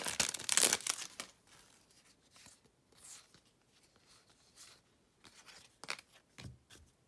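Crinkly wrapper of a trading card pack being torn open for about a second, then faint rustles and light clicks of cards being handled.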